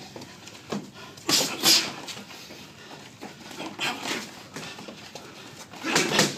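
Boxers sparring: short, sharp hissing exhalations thrown with the punches, mixed with the dull smack of gloves landing, in a few bursts a second or two apart, the loudest near the end.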